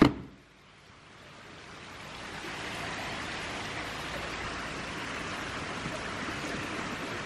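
A sharp hit at the very start, then a steady rush of running water that fades in over the first couple of seconds and holds.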